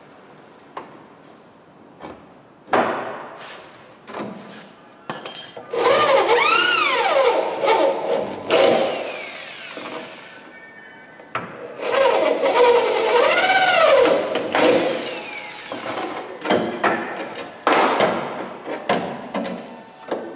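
Corded electric drill working into the sheet-metal seam at a car's rear wheel arch while the damaged rear wing is cut away, its motor pitch sweeping up and back down in two long runs, each ending in a spin-down. Scattered knocks and taps come before, between and after the runs.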